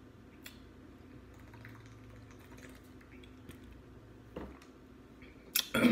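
A person sipping from a plastic water bottle and then chewing, heard as scattered soft clicks and mouth sounds, with one short, much louder sound near the end.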